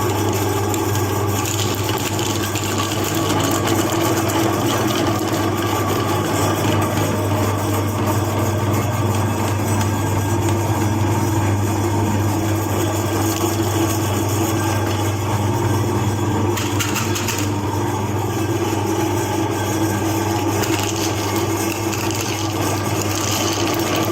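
Electric meat grinder running steadily while grinding chocolate candy, its motor humming with a rough grinding noise over it.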